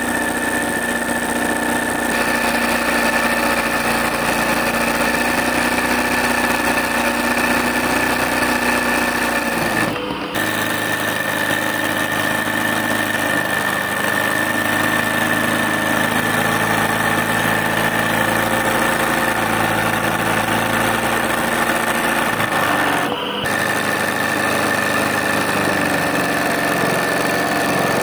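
A steady mechanical hum made of several steady tones over a noisy background. It changes abruptly about ten seconds in and again about twenty-three seconds in.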